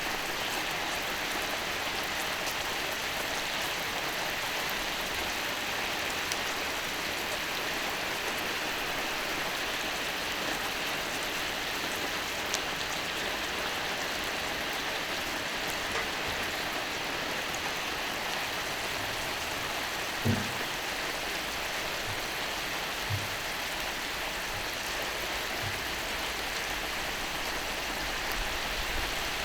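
Skirt steak sizzling on a hot iron griddle, a steady, even hiss. Two soft knocks come in the latter part.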